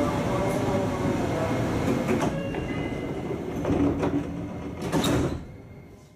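Sliding passenger doors of a Japanese electric train working, heard over the train's steady background noise, with sharp knocks from the door mechanism about two, four and five seconds in.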